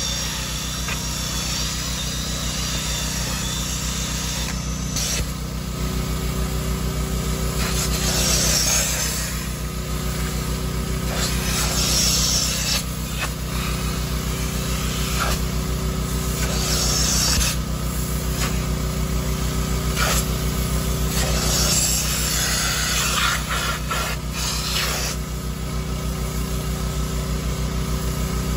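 Carpet and upholstery extractor running steadily with a droning vacuum motor, while its upholstery wand is drawn across a cloth car seat in repeated passes. Each pass brings a rushing hiss, about every three to four seconds.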